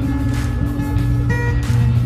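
Music with held notes over a heavy, steady bass.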